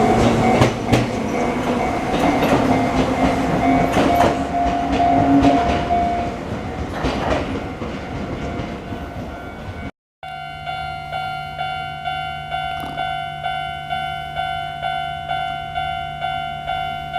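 Chichibu Railway electric train running, its wheels clicking over the rail joints with a steady whine that fades out about six seconds in. A cut at about ten seconds gives way to steady tones pulsing evenly, like background music.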